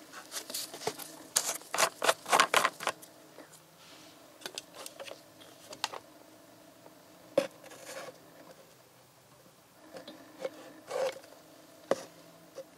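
Red plastic screw cap of a plastic oil bottle being twisted off, with a rapid run of sharp clicks and crackles in the first three seconds. Then come scattered clicks and crinkles as the foil seal is torn open and the plastic bottle and lid are handled, over a faint steady hum.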